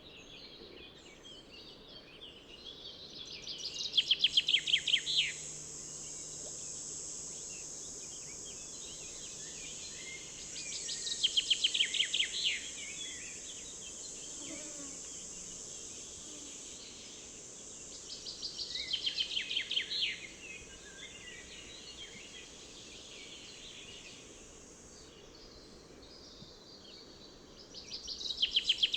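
A songbird singing the same short, fast trilled phrase four times, about every seven or eight seconds, over a steady high hiss that comes and goes.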